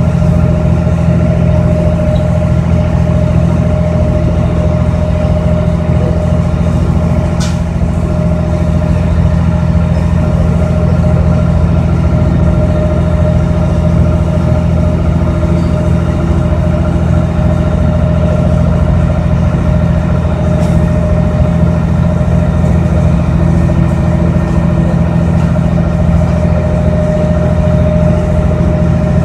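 A boat's engine running steadily at an even speed, heard from on board as a constant, unchanging hum.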